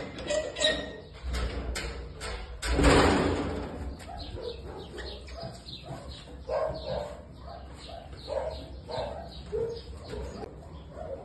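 Puppies whining and yipping in many short, high calls, several in a row in the second half. Clicks early on and a loud rustling burst about three seconds in.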